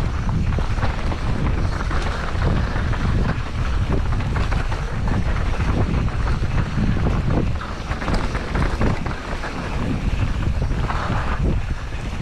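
Wind buffeting the microphone: a loud, continuous low rumble with a rushing hiss and frequent small knocks and rattles.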